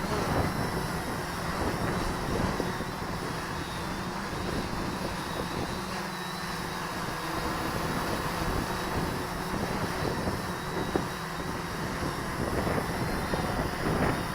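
A quadcopter's electric motors and propellers running steadily in flight, with a constant hum and a thin high whine.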